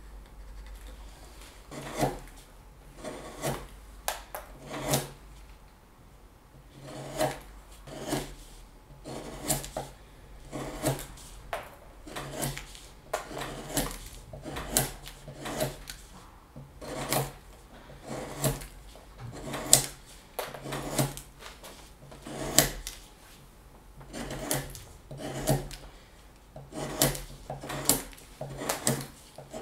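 Knife carving wood in repeated short cuts, roughly one stroke a second, with a brief pause between runs of cuts.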